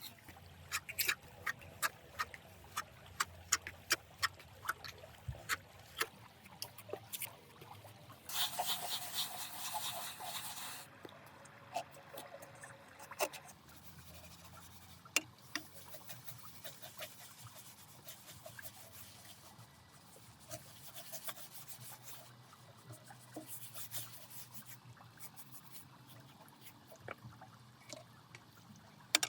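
Small scraping and tapping sounds, many quick clicks in a row, with a louder rush of noise lasting about two seconds partway through and faint trickling water.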